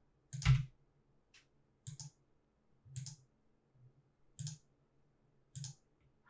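Computer keyboard and mouse clicks: spacebar presses and left mouse-button clicks, about six separate clicks at irregular gaps of roughly a second, each with a dull knock beneath, the first the loudest.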